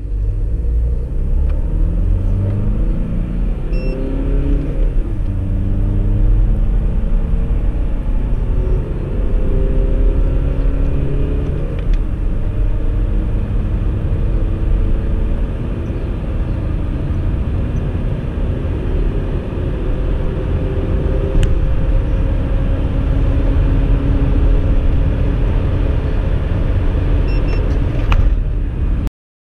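VW Sharan 2.0 TDI four-cylinder turbodiesel, Stage 1 remapped, pulling under hard acceleration, heard from inside the cabin over road rumble. Its note climbs steadily in pitch and drops back a few times where it shifts up a gear.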